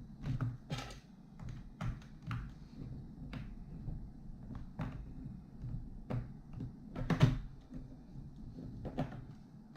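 Scattered clicks and taps of plastic being handled as a laptop's bottom cover is worked loose from its clips, with a louder knock about seven seconds in.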